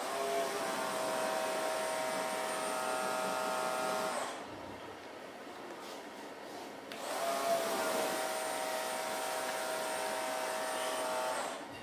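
A small electric motor running with a steady whine, twice for about four seconds each. Each run rises briefly in pitch as it starts and cuts off suddenly.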